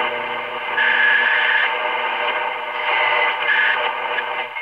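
1932 Tiffany Tone Model 5 tube radio playing a distant AM station through its speaker. The sound is thin, with little bass or treble, and a steady low hum runs under the broadcast.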